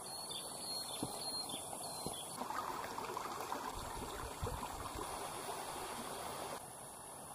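Stream water running over rocks, louder through the middle and dropping off suddenly near the end.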